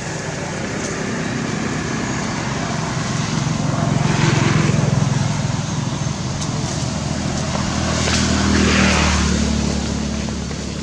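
Motor traffic passing by: engine and tyre noise that swells twice, about four seconds in and again around eight to nine seconds, over a steady low engine hum.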